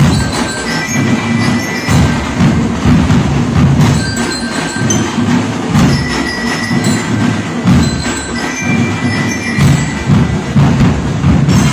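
Marching band playing: drums keep a steady beat while bell lyres ring out a melody.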